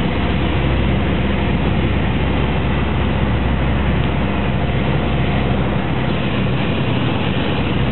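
Light aircraft's engine and propeller droning steadily, heard inside the cabin, with a hiss of rushing air over it.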